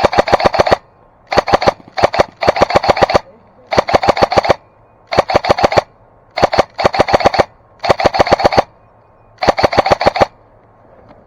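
Airsoft gun firing on full auto in about ten short bursts of rapid shots, each burst under a second long, with brief pauses between them.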